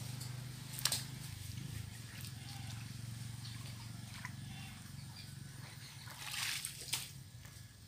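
Muddy pond water sloshing and splashing as a plastic tub is scooped through a shallow puddle, with a sharp knock about a second in and a louder slosh near the end. A steady low hum runs underneath.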